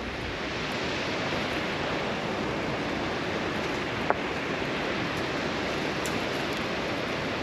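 Steady rushing noise of river water, with one sharp click about four seconds in.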